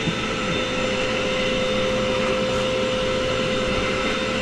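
Vacuum cleaner running steadily with a constant whine, its hose and crevice tool sucking up mouse-nest debris from a drawer cavity.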